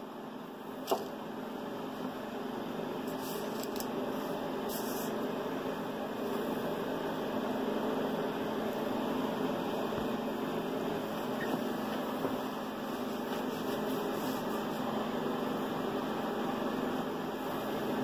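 Steady mechanical whir of room noise with a faint hum, swelling a little over the first few seconds and then holding even, with one light tap about a second in.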